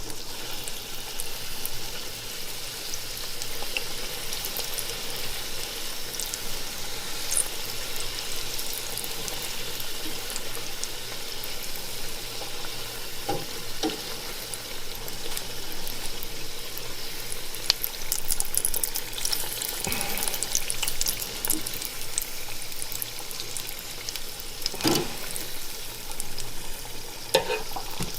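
Batter-coated Creme Egg deep-frying in hot oil in a deep fat fryer: a steady sizzle with constant crackling, and a few dull knocks around the fryer.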